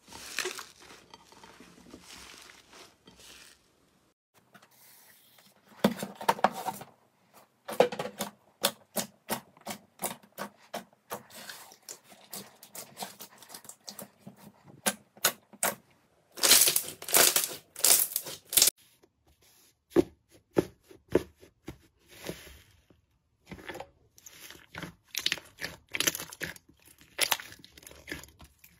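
Hands squeezing and kneading slime, with quick popping clicks and crackling as trapped air bursts and the slime stretches. The pops come in runs with short quiet gaps, and the loudest, densest crackling comes about two-thirds of the way through.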